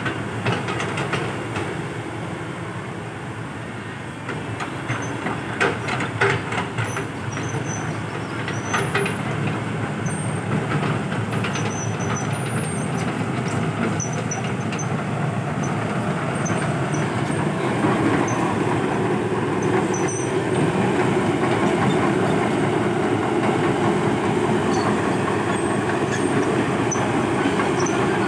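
Komatsu PC120-5 hydraulic crawler excavator working: its diesel engine runs under load, with metal clanking and squealing from the steel tracks and bucket. Short knocks stand out early on, and the running grows louder and steadier about two-thirds of the way in.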